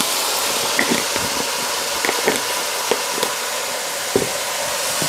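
Minced beef sizzling steadily as it browns in a frying pan, with small crackles and a few light knocks scattered through.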